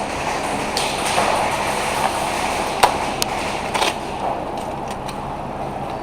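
A few sharp, scattered cracks of airsoft guns firing, about a second in, near the three-second mark twice, and just before four seconds, over a steady background noise.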